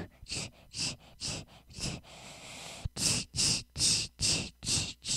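Steam-locomotive chuffing: rhythmic hissing puffs about two a second, a steady hiss of steam about two seconds in, then louder puffs.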